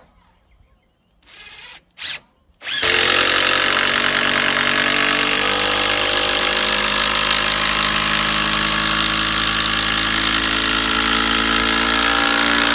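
Cordless drill running under load into a heavy timber: two short blips, then a long continuous whine whose pitch sags slightly as the load builds.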